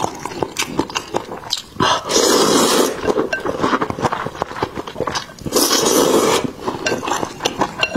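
A person loudly slurping soupy snail noodles (luosifen) from a bowl: two long slurps, about two seconds in and again about five and a half seconds in, with wet chewing and mouth clicks between them.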